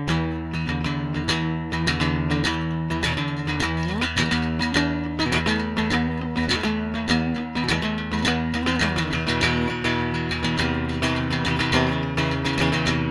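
Electric cigar box guitar played with a slide: sustained notes over steady low notes, with several pitch glides.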